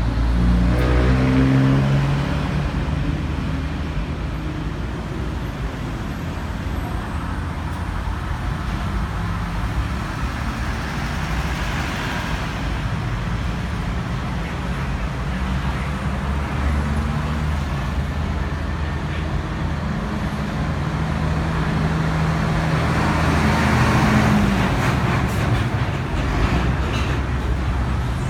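A motor vehicle running, with steady engine and road noise. The engine pitch rises in the first couple of seconds, and the noise swells again around the middle and near the end.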